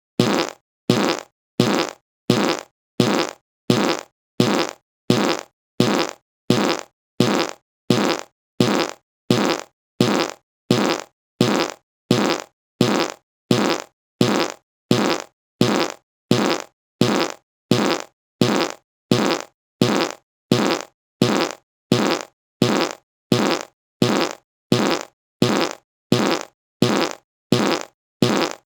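A short fart sound repeated over and over, one identical burst about every two-thirds of a second, each starting loud and dying away within half a second.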